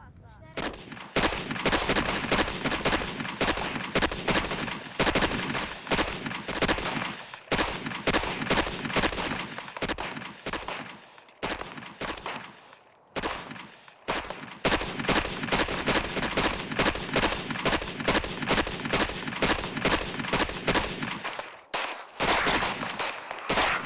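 Rapid small-arms gunfire on a firing range, many sharp shots in quick succession. There is a brief pause about halfway through and another near the end.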